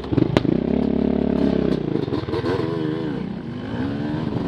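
Motorcycle engine revving up and down on a trail, its pitch wavering with the throttle. There is a sharp knock about half a second in.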